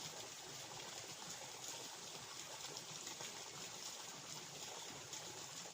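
Water trickling and flowing steadily in a small ditch.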